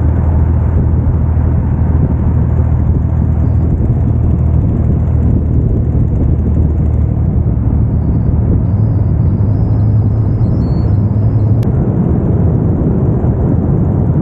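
Steady drive noise heard from inside the cabin of a 1987 Pontiac Fiero GT cruising down the road: the 2.8 V6 engine's low drone mixed with tyre and road rumble, holding even throughout.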